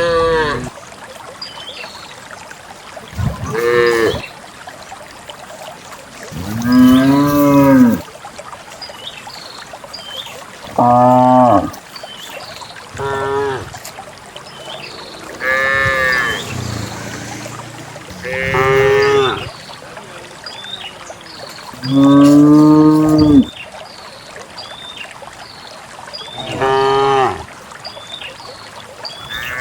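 Cows mooing over and over, about nine long calls a few seconds apart, each one rising and then falling in pitch.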